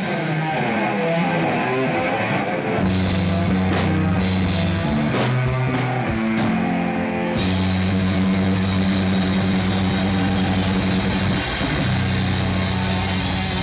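Hard rock band playing live: distorted electric guitars, bass and drums holding long low chords. Separate cymbal crashes come in the first half, then a steady cymbal wash from about halfway through.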